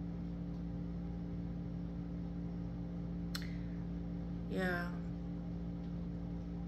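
A steady low hum of several fixed pitches runs through a quiet room. A single sharp click comes about three seconds in, and a short murmur of voice comes a little later.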